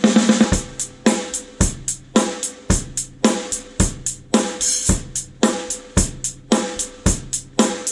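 Drum kit played in a steady groove: bass drum, snare and hi-hat or cymbals, the snare ringing on after its hits.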